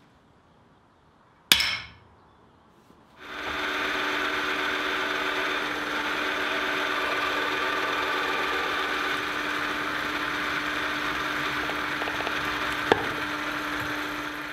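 A single hammer blow on the anvil about a second and a half in. Then a drill press runs steadily with a constant hum while its bit cuts through the forged steel head of a pickaroon, and it stops just before the end.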